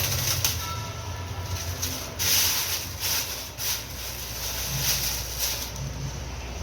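Handling noises: a few short rustling scrapes, the loudest a little over two seconds in, over a steady low rumble.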